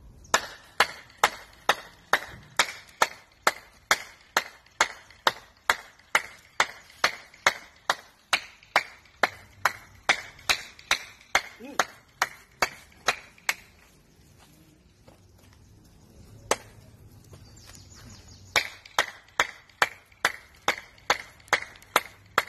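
A steady run of sharp clicks or knocks, about two and a half a second. It stops about two thirds of the way in, with one lone knock in the gap, then starts again near the end.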